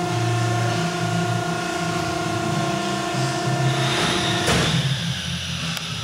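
Hydraulic pump motor of a Piqua 40 series vertical baler running with a steady whine over a low hum. About four and a half seconds in there is a clunk and the whine stops, leaving a lower hum.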